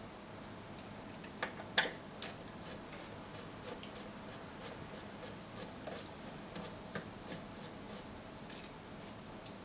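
Screwdriver turning screws in a cassette deck mechanism: a run of small, light clicks, about two or three a second, the loudest near two seconds in.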